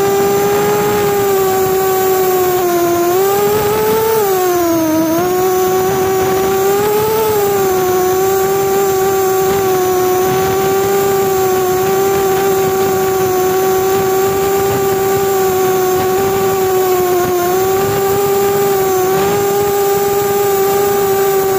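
Motors and propellers of a small long-range FPV quadcopter (Flywoo Explorer LR 4), recorded on board, whining steadily. The pitch dips and rises a few times as the throttle changes a few seconds in, then holds nearly level.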